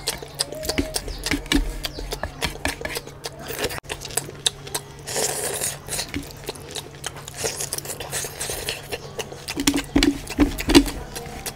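Close-miked eating sounds: a hand squishing and scooping rice and curry on a plate, and a mouth chewing and smacking, a fast run of small wet clicks. Two short hissy rushes come about five and eight seconds in.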